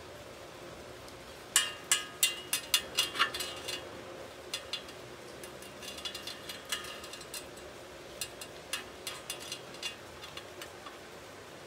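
A 6013 stick-welding electrode tapping on the weld bead of thin galvanized steel sheet: light metallic clinks with a short ring. A quick run of about eight taps comes about a second and a half in, then scattered single taps follow every half second or so.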